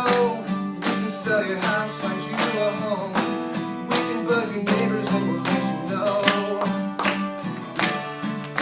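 A song with strummed acoustic guitar over a steady beat of about two strokes a second, in a stretch with no sung words.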